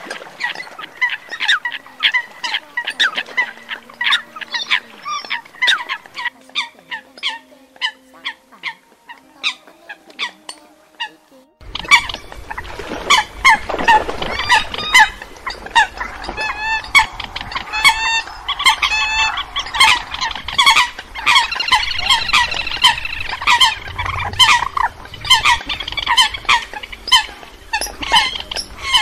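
Eurasian coots calling: a fast run of short, sharp calls repeated many times a second. About twelve seconds in, the calls become denser and overlap as a chorus of several birds, over a steady background hiss.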